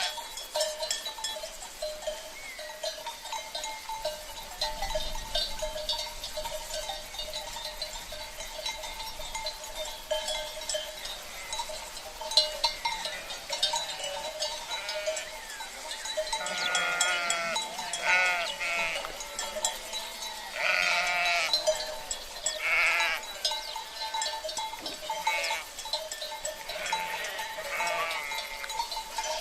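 Flock of sheep bleating, several calls close together in the second half, over the steady ringing and clinking of livestock bells.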